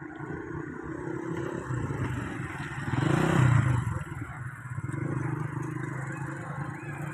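A motor vehicle passing close by: engine and tyre noise swell to the loudest point about three seconds in, then fade. Under it runs a steady engine hum.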